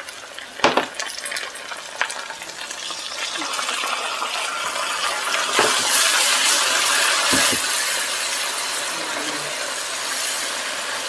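Onions and ginger-garlic paste frying in hot oil in a nonstick wok, stirred with a silicone spatula. There is a knock within the first second and another at about two seconds, then the sizzle swells about four to six seconds in as a little water meets the hot oil, and it keeps sizzling.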